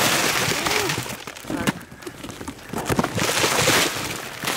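Plastic instant-noodle packets rustling and crinkling as they are tipped out of cardboard boxes into a heap, in two heavy spells: one at the start and one about three seconds in.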